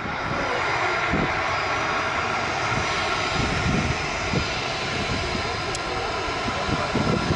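Jet aircraft engines running steadily on the ground, a constant even rush with faint steady tones.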